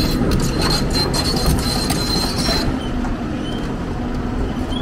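Hyundai 290LC crawler excavator's diesel engine running under load as its steel tracks travel over the trailer deck, the tracks squealing and clicking for the first two and a half seconds, then just the steady engine rumble.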